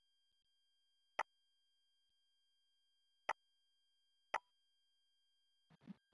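Three sharp computer mouse clicks, spaced unevenly, over near-silent room tone with a faint steady electrical hum. A soft, brief noise comes just before the end.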